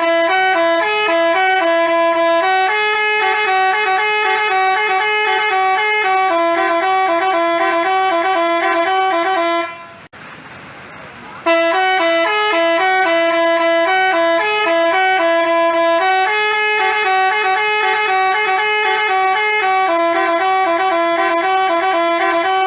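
Telolet basuri bus air horn playing a melody of stepped musical notes. It breaks off about ten seconds in and, after a short pause, plays the same tune again.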